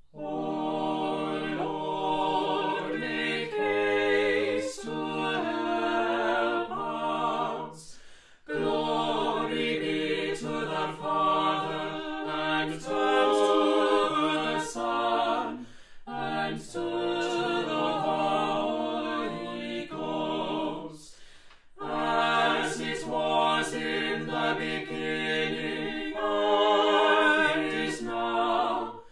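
Mixed vocal quartet singing unaccompanied choral responses in four-part harmony: sustained chords in phrases, with short breaks about 8, 16 and 21 seconds in.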